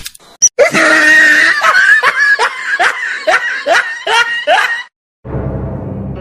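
Laughter sound effect dubbed in for comedy: about a dozen loud falling 'ha' bursts, roughly three a second, that stop abruptly just before the five-second mark. A low music drone starts near the end.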